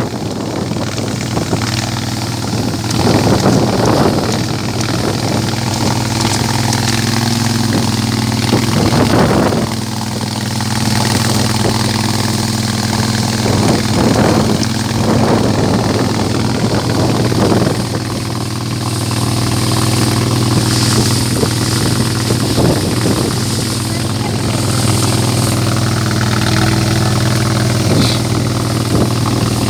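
A small boat's engine running steadily at cruising speed, a constant low drone, with wind and water noise washing over it in irregular gusts.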